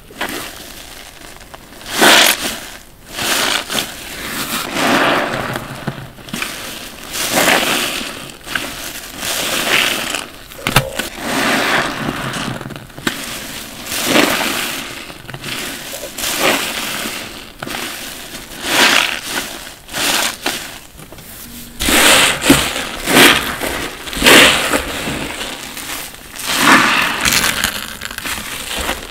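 Soaked bath sponges full of thick soapy foam are squeezed and wrung in rubber-gloved hands, giving repeated wet squelching squeezes about every second or two. The squeezes come quicker together a little past two-thirds of the way through.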